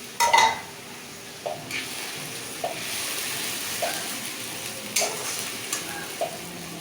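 Onion and ginger-garlic masala sizzling in a kadai as a spatula stirs it, with knocks of the spatula against the pan about once a second, the loudest just after the start.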